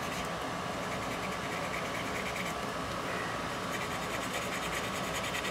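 Scrubbing brush worked rapidly back and forth on the painted plastic edge of a model gondola car: rhythmic scratching as the paint is worn through for a chipped weathering effect. A steady hum runs underneath.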